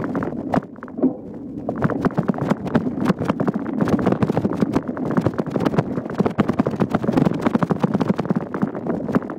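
Mountain bike rattling and clattering over a bumpy trail: a dense run of irregular knocks and clicks, lighter for the first couple of seconds and then continuous.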